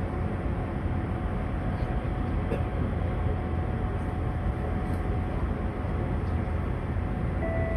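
Steady hum and whir inside a stationary Siemens C651 train car with its doors open, with a faint steady whine over it. A chime tone starts just before the end.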